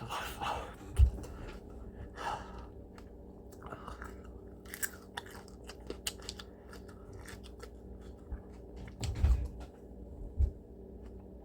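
A person chewing a mouthful of raw habanero peppers with wet, crunchy bites and short clicks, the tough pepper flesh described as like chewing through rubber. A few low thumps come about a second in and twice near the end, over a faint steady hum.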